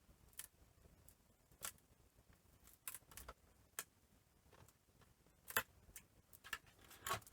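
Faint, scattered clicks and taps from handling plastic laptop parts during disassembly, about seven of them spread out, the sharpest about five and a half seconds in.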